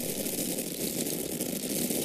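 Dry corn kernels falling and pouring in a steady stream: a dense, unbroken rattle of many tiny impacts.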